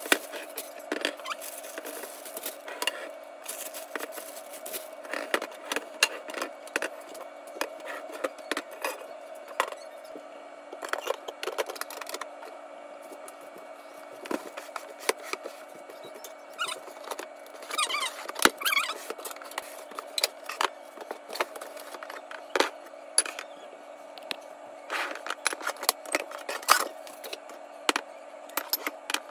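Plastic food storage containers and their plastic wrapping being handled: many short clicks, taps and crinkles as the containers are unwrapped and set down on a countertop, with a brief squeak about halfway through. Near the end, glass food containers clink as they are set out.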